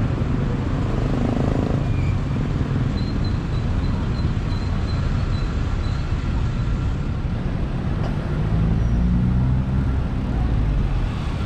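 Steady road traffic: a low rumble of passing vehicles that swells slightly about eight seconds in.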